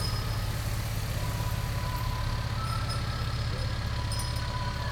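A motor vehicle engine idling, a steady low rumble.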